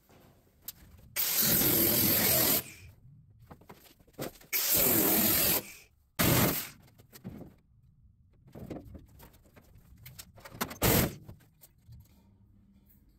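A power tool cutting into the truck's sheet-metal roof in short bursts, four in all, the longest about a second and a half, with small knocks and clatter in between.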